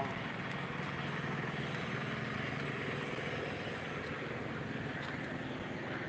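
Steady outdoor background noise: a low, even hum with no distinct events.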